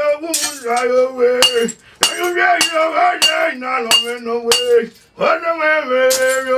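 A man singing slow, drawn-out notes, with sharp glass clinks about once a second, some ringing briefly.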